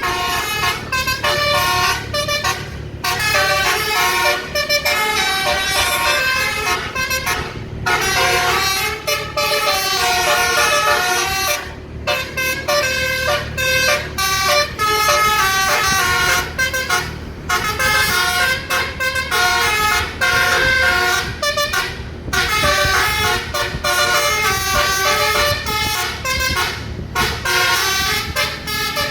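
Bus 'telolet' basuri horn, a set of tuned air horns, playing a melody note by note in phrases with brief breaks about every five seconds, over the low rumble of the bus's engine.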